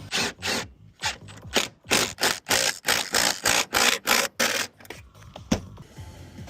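Metal S5 standing-seam roof clamp being worked with a hand tool: a quick run of short ratcheting, scraping strokes, about three a second, that stops about three-quarters of the way in, followed by a single sharp click.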